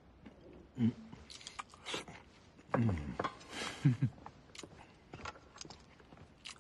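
A man eating noisily: chewing and crunching with scattered clicks, broken by three short hums falling in pitch.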